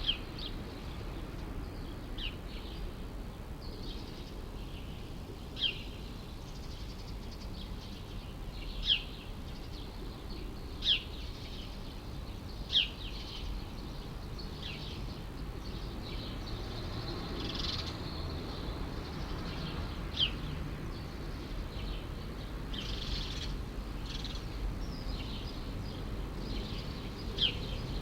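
A songbird repeating short, sharp falling chirps every couple of seconds over a steady low background rumble.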